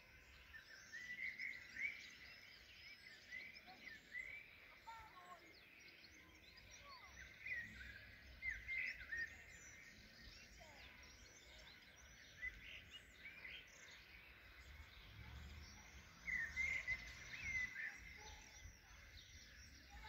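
Faint songbirds chirping and warbling, many short calls throughout, with clusters of calls about 1 to 2 seconds in, around 8 seconds and again near the end, over a faint low rumble.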